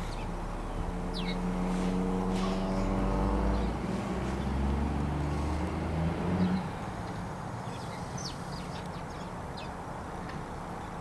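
A motor vehicle driving past, its engine heard for about six seconds and fading out about two-thirds of the way through. A few short, high bird chirps come through near the start and near the end.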